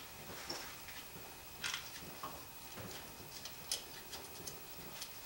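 Faint, scattered light clicks and taps of a valve cover being handled and seated by hand on an engine's cylinder head, with a sharper click about a second and a half in and another near four seconds.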